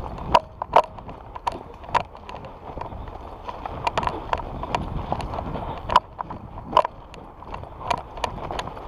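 A player's footsteps moving over a forest floor, with gear knocking: irregular sharp knocks and clicks, one to three a second, over steady outdoor noise.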